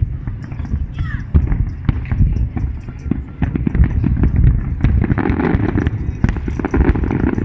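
A city-wide fireworks display: many fireworks bursting at once, a dense, irregular run of bangs and crackles over a continuous low rumble.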